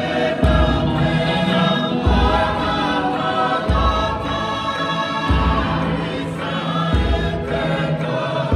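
Music for a Tongan tau'olunga dance: a group of voices singing a held, flowing melody in harmony, over a deep low beat that falls about every second and a half.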